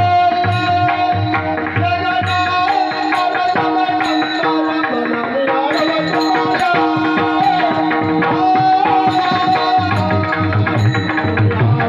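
Indian devotional bhajan music: hand-drum strokes keep a steady rhythm under a held, wavering melody, with small cymbals clinking. The low drum beats thin out in the middle and come back strongly near the end.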